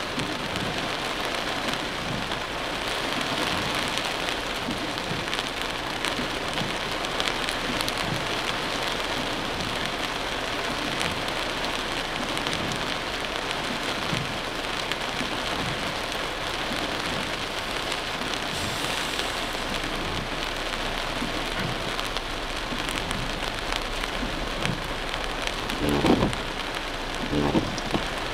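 Heavy rain pelting a car's windshield and roof, a dense steady patter heard from inside the cabin. Near the end come two short dull thumps.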